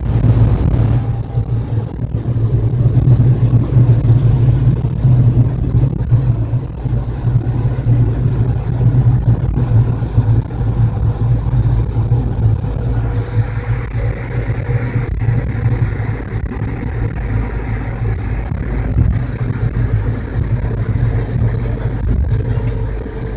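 A bus engine and road noise heard from inside the cab while driving, a loud steady low drone.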